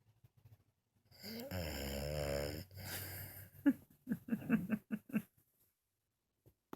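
French bulldog snoring in her sleep: two long, drawn-out snores starting about a second in, followed by a quick run of about eight short snorts.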